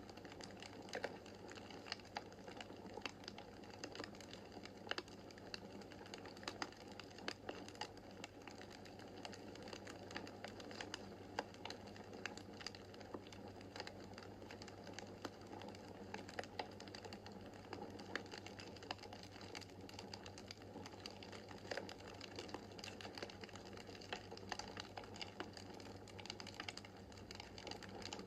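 Wood fire in a fireplace crackling: dense, irregular small pops and ticks over a steady soft hiss.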